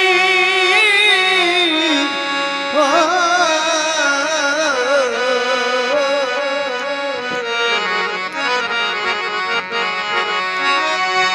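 Instrumental break in a live Punjabi folk song: held reed-like notes sound under a wavering melody line that slides up and down and sinks lower through the middle, with light drumming.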